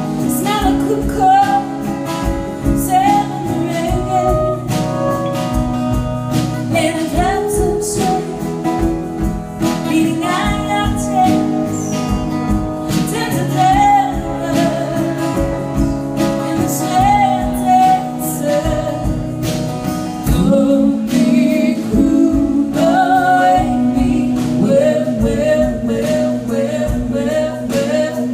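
Live band performance of a folk song: a woman's voice singing the melody over accompanying instruments with a steady strummed rhythm.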